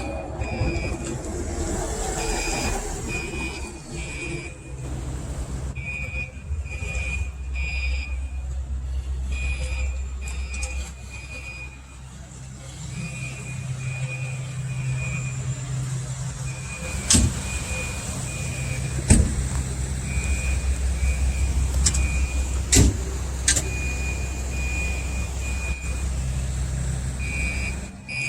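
Building fire alarm sounding: a high-pitched electronic tone pulsing on and off in short beeps, over the steady low rumble of an idling vehicle engine. A few sharp clicks come in the second half.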